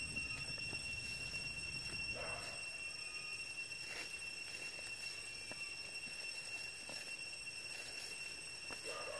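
Steady high-pitched drone of forest insects, with a few faint ticks and rustles.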